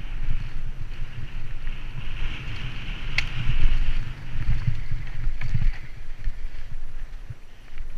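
Mountain bike descending a rocky dirt trail at speed, heard from a helmet-mounted camera: wind on the microphone, tyres rolling over dirt and loose rocks, and the bike rattling, with a sharp clack about three seconds in and a smaller one a couple of seconds later.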